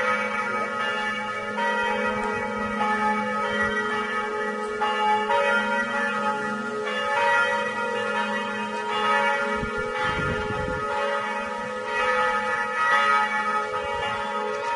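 Church bells pealing: several bells ringing together, new strokes every second or two overlapping into continuous ringing. A short low rumble about two-thirds of the way through.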